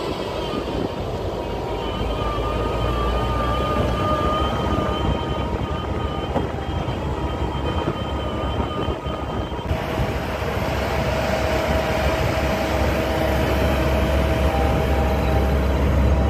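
AgXeed robot tractor on rubber tracks running as it pulls a spading implement through the soil. It makes a steady machine drone with a thin whine, which drops to a lower whine about ten seconds in.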